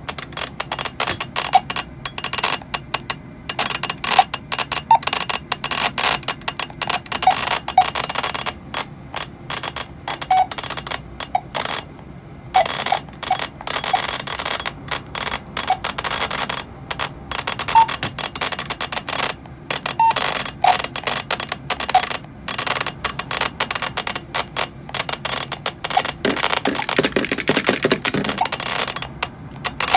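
Aiphone VGX-series indoor master station (such as the VG-2GT) giving off an irregular crackle of pops and clicks from its speaker, with occasional short faint tones mixed in. The popping is an abnormal noise that is the sign of a fault in the unit.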